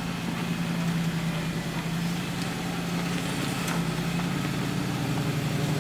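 Off-road Jeep engine running at a steady speed, an even low drone with no revving up or down.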